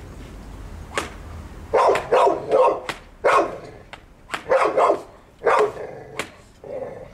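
Blue pit bull–type bully dog barking at a trainer's bite sleeve held over its head: a run of about eight loud, sharp barks in quick groups, starting a couple of seconds in. The dog barks but holds back from biting, as taught in bite-control obedience training.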